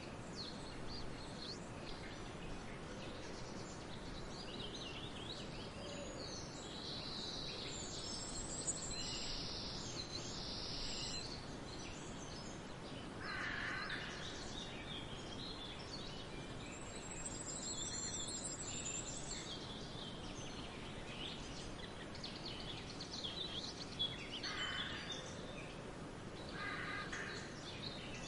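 Wind blowing steadily through a barley field, with swallows twittering on and off throughout. A high, fast chirring from crickets comes in twice. A few harsher, lower calls come near the middle and again near the end.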